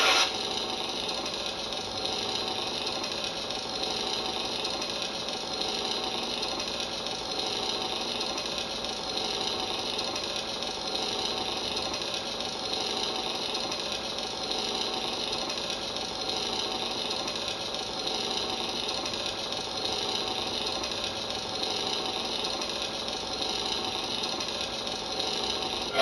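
Toy lightsaber's built-in speaker playing its steady electronic idle hum, swelling and fading slightly every couple of seconds.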